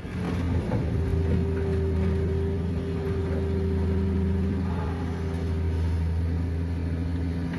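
Steady drone of a Hitachi EX210LC hydraulic excavator's diesel engine working as it lifts a bucketful of sand, with a higher steady hum that fades about five seconds in.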